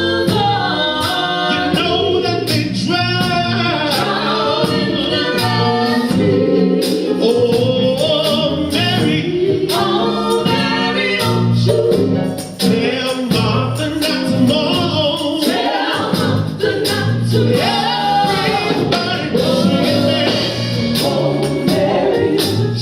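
Gospel choir singing live over instrumental accompaniment with a steady beat.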